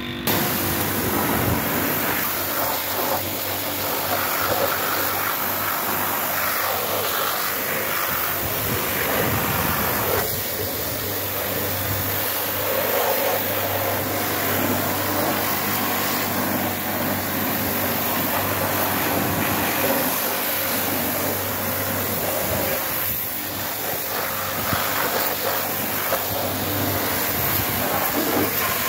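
Pressure washer running steadily, its high-pressure water jet hissing as it sprays over a lawn tractor's engine.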